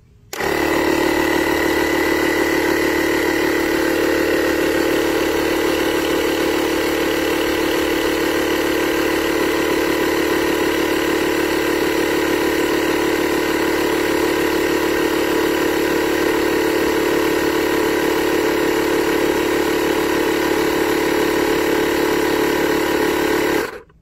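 Avid Power portable tire inflator's electric compressor starting the moment its button is pressed and running steadily while inflating a motorcycle tire, the pressure climbing from about 21 to 26 psi. It stops abruptly near the end.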